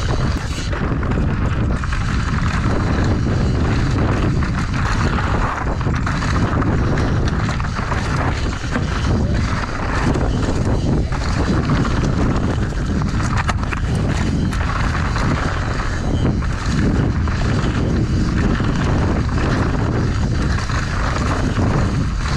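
Mountain bike ridden fast down a rocky trail, heard from a camera on the rider. Wind buffets the microphone and the tyres rumble over rock and dirt, with frequent rattling knocks from the bike over stones.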